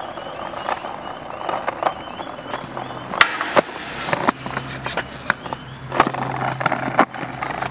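Temporary steel mesh fence panels clanking and rattling as a person climbs on and inside them, with a series of sharp metal knocks, the loudest after about three seconds.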